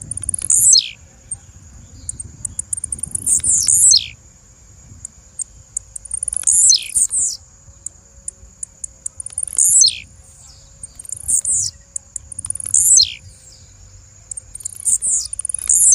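Blue-black grassquit (tiziu) singing: short, sharp, high phrases that sweep steeply down in pitch, about seven of them at intervals of two to three seconds, with soft high ticks in between. A steady faint high whine runs underneath.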